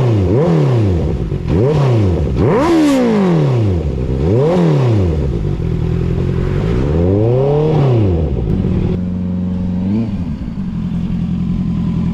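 Honda CBR650R inline-four through an Ixil Hyperlow Black XL aftermarket exhaust, revved in a series of quick throttle blips. A slower, longer rev comes about seven to eight seconds in, then the engine settles to a steady idle with one small blip.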